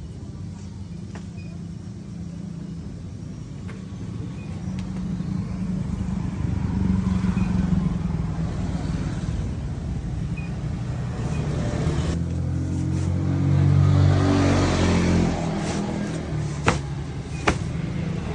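An engine running steadily, swelling louder twice as it picks up speed, with two sharp clicks near the end.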